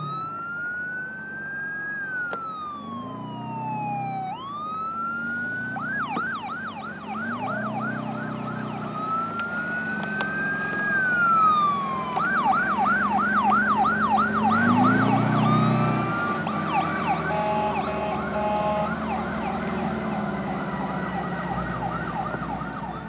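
Emergency vehicle sirens from a fire tender and ambulance on the move, switching between a slow wail that rises and falls and a fast yelp of about three to four sweeps a second, with more than one siren sounding at once. A vehicle engine runs underneath.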